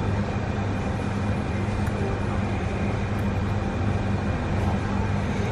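Steady low hum of kitchen machinery, with a faint steady whine above it.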